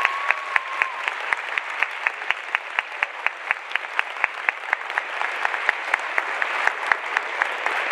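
Audience applauding, with one pair of hands clapping close and sharp at about five claps a second over the crowd's steady clapping.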